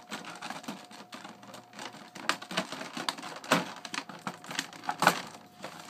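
Clear plastic blister pack crackling and clicking as it is handled and sealing tape is picked and peeled off its edges: irregular sharp clicks, the loudest about three and a half and five seconds in.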